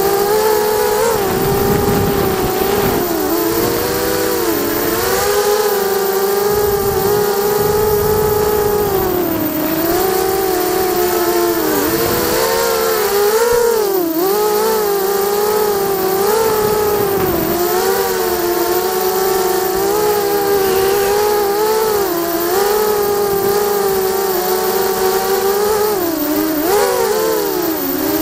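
Four brushless motors and propellers of a ZMR 250 FPV quadcopter, heard from its onboard camera: a steady buzzing whine whose pitch dips and rises as the throttle changes. Wind buffets the microphone with a low rumble in the first half.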